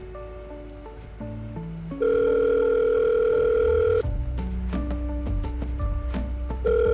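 Telephone ringback tone heard on a call being placed: a steady hum lasting about two seconds, then starting again near the end, over background film score.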